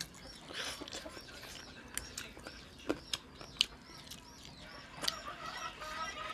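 Chickens in the background: a steady string of short, high peeps, about three a second, joined by clucking from about five seconds in. Scattered sharp clicks and smacks of eating by hand sit over it.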